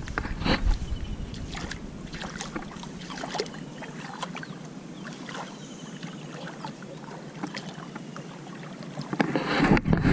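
Shallow water splashing and lapping around fishing kayaks, with scattered small knocks and clicks from the hulls and gear as the boats are moved in the water. The knocks get louder near the end.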